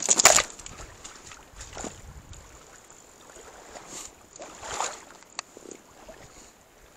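River water splashing and sloshing close to the microphone as a hooked trout is played near the surface. The splashing is loudest at the very start and again about two-thirds through, with faint water noise between.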